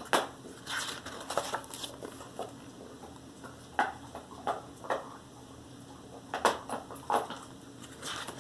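Pages of a hardback picture book being handled and turned: a series of short paper rustles and taps, the louder ones about a second apart.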